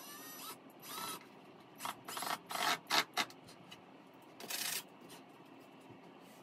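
Cordless drill run in two short trigger pulses, its motor pitch rising and falling, then several short scraping and clattering noises as tools and wood are handled.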